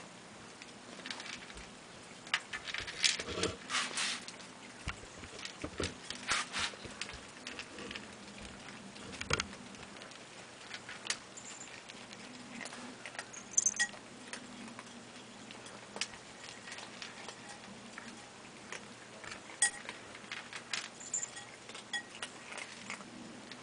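Several cats eating dry kibble from a shared dish: irregular crunching and clicking of the kibble against the dish, thicker in a few short clusters.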